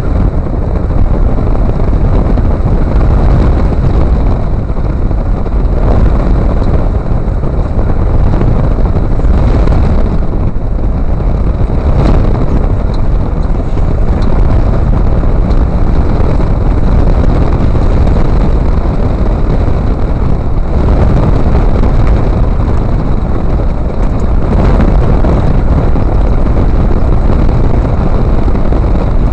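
Loud, steady rumble of a lifted 2008 Toyota Tundra on the move, heard from inside its front wheel well: tyre and road noise with wind buffeting the microphone. A few brief knocks come through, the loudest about twelve seconds in.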